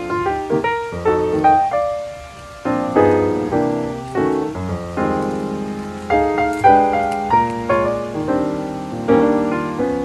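Background piano music: a run of struck notes and chords, each fading after it is played.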